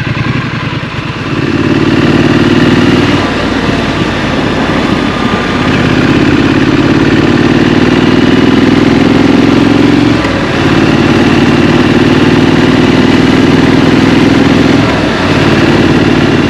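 Triumph Street Scrambler's parallel-twin engine pulling under throttle while riding, in several stretches broken by short dips where the throttle is rolled off or a gear is changed. Within each stretch the engine note creeps slowly up in pitch.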